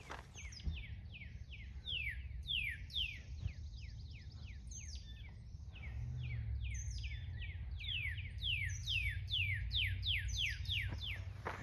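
Birds chirping: a long run of short falling chirps, about three a second, over a steady low rumble.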